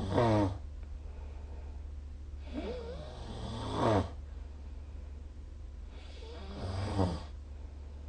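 A sleeping person snoring in slow, regular breaths: three snores about three and a half seconds apart, each swelling to a loud peak and then stopping abruptly, over a steady low hum.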